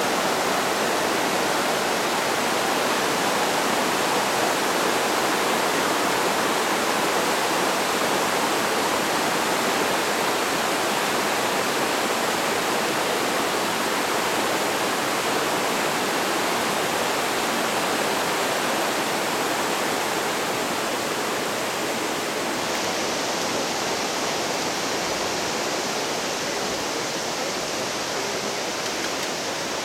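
Steady rush of a shallow, rocky mountain creek tumbling over boulders in rapids, easing slightly in the last few seconds.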